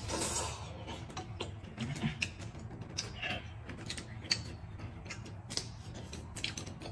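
Table eating sounds: a short slurp from a bowl of soup at the start, then scattered light clicks and taps of chopsticks and tableware.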